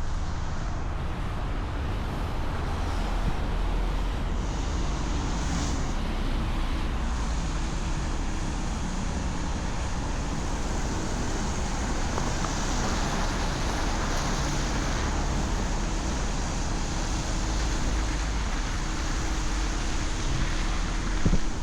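City street traffic: vehicles running past in a steady rush of road noise with a low rumble.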